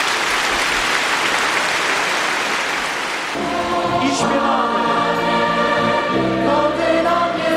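A crowd applauding. About three seconds in, a large crowd of young people starts singing a religious song together.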